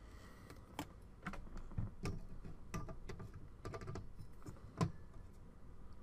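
Faint, irregular light clicks and taps of a CPU heatsink with its fan being handled and set onto a motherboard, with a few slightly sharper knocks as it is positioned over its mounting screws.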